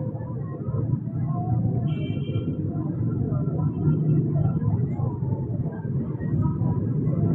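Busy street-market ambience: a steady low rumble of traffic with indistinct voices in the background, and a short high tone about two seconds in.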